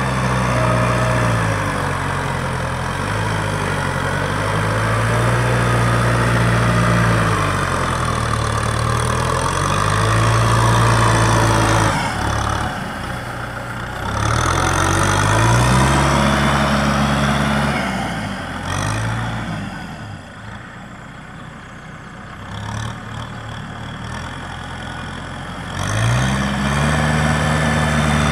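Kubota M6040 SU tractor's four-cylinder diesel engine running under load while tilling mud in a flooded rice paddy, its revs rising and falling again and again. The engine is quieter for several seconds a little past the middle, then loud again near the end.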